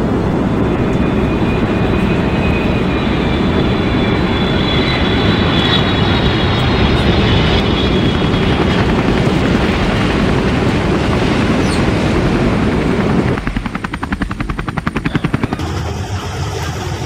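Loud steady engine rumble mixed with a rushing hiss. About thirteen seconds in it turns into a rapid flutter, and then it drops to a quieter, lower running sound.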